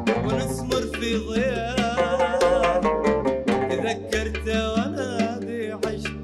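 A man singing an Arabic song with wavering, ornamented notes over plucked oud accompaniment and a line of held low bass notes.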